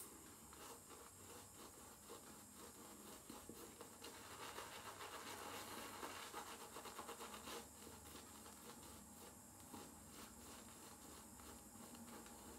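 Shaving brush scrubbing lather into a day's stubble on the face: a faint, fast, scratchy swishing of quick strokes, busiest in the middle.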